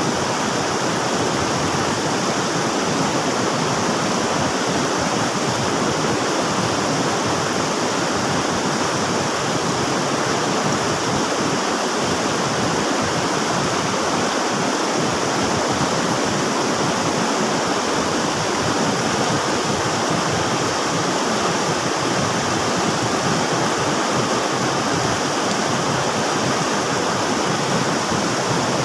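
River water rushing steadily, an even hiss without breaks.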